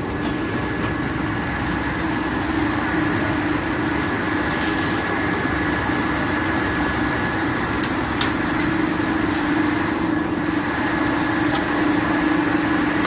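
GX428 drum wood chipper running steadily: a constant machine hum with a steady higher whine above it, and two brief clicks about eight seconds in.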